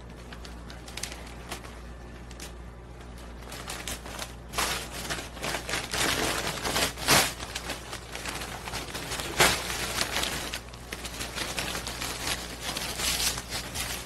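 Golden retriever rummaging with its nose in a patterned bag: irregular rustling and crinkling with scattered clicks, louder in a few short bursts through the middle and near the end.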